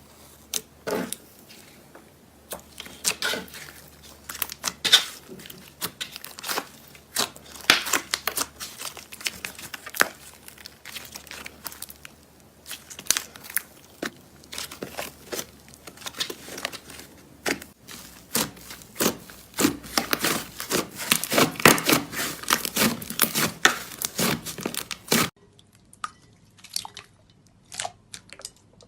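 Slime being squeezed, stretched and poked by hand, giving a dense run of crackling and popping. Near the end it cuts to sparser, quieter pops.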